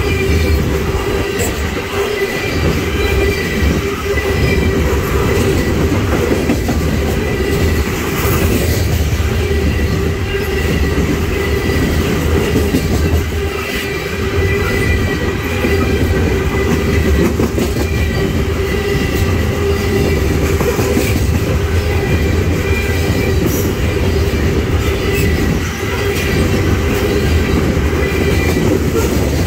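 Coal train hopper cars rolling past close by: a steady, loud rumble of steel wheels on rail with a clickety-clack of the wheels. A steady high whine runs through it throughout.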